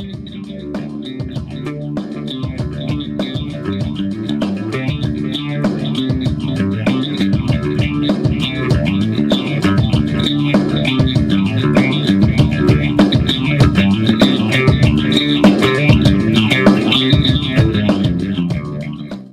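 Outro music with guitar and bass and a steady beat, growing louder and then cutting off abruptly at the end.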